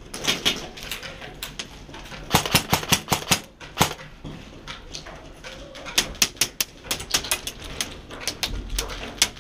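Rapid airsoft fire: fast, irregular clusters of sharp cracks and clacks. The densest bursts come about two seconds in and again from about six to seven and a half seconds.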